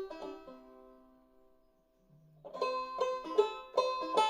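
Five-string banjo in eCGCD tuning played clawhammer style: notes left ringing die away over about two seconds, then a quick run of plucked notes starts about two and a half seconds in.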